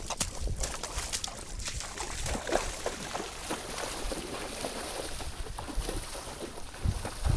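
Chest waders splashing through shallow floodwater as a person runs and wades through a muddy puddle: a quick, irregular run of splashes and sloshing.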